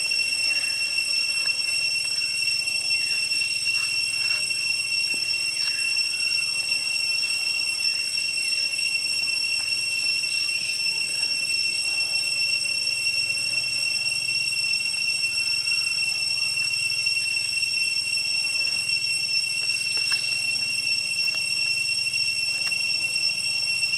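Insects droning in the forest: one steady high-pitched tone that never breaks. Faint rustles and scrapes from corn husks being peeled and a knife trimming the cob come through now and then beneath it.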